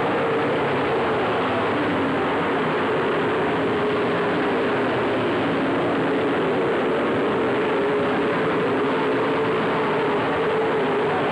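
A field of dirt late model race cars running around the track, their V8 engines blending into one steady drone whose pitch wavers slightly as the cars circle.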